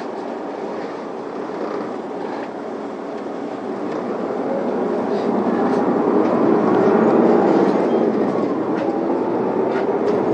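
Isuzu Erga city bus's diesel engine pulling away from a stop, heard from inside the passenger cabin: the engine note grows louder as the bus accelerates, peaking a little after the middle, then eases slightly.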